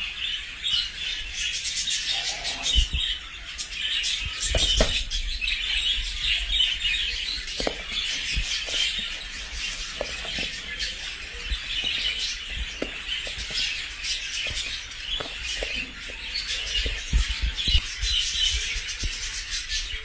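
A flock of small caged birds chirping and chattering continuously, many short high calls overlapping, with scattered light clicks and knocks.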